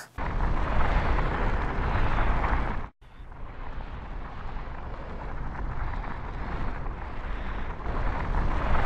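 Anime sound effect of a deep, ominous rumble, the 'gogogo' of a menacing aura. It breaks off sharply about three seconds in, then starts again and runs on.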